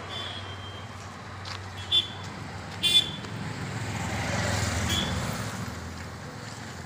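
Street traffic noise with two short vehicle horn toots, about two and three seconds in, and the rumble of a vehicle swelling and fading near the middle.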